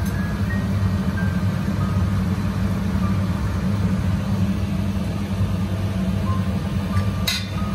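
Steady low mechanical hum, with a sharp metallic clink about seven seconds in.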